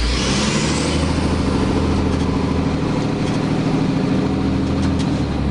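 Car engine running steadily, a low hum of engine tones with road noise over it.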